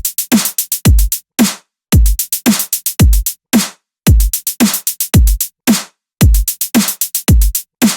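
Electronic music made of drum-machine beats: deep kicks that drop in pitch, each followed by a quick run of sharp clicks and hats, in a repeating stop-start pattern with brief full silences between phrases.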